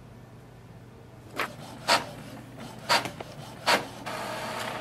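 Epson XP-5200 inkjet printer printing a print-head alignment page: four sharp mechanical clicks, then a steady whirr near the end as the print head and paper feed run.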